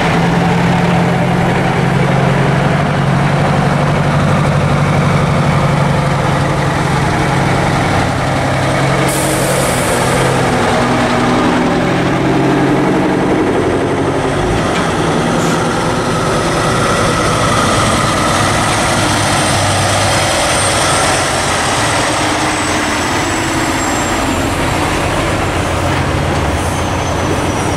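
Heavy diesel semi-truck engines running steadily as big rigs pull slowly past one after another, with a short air-brake hiss about nine seconds in.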